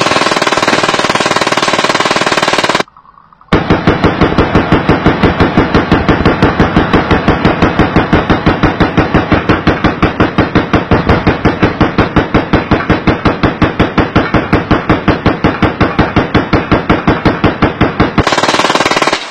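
Glock 17 pistol firing incendiary rounds in a long string of rapid, evenly spaced shots, about five a second. The first few seconds are one dense, unbroken run of fire, which stops suddenly about three seconds in; after a brief pause the steady string of shots resumes.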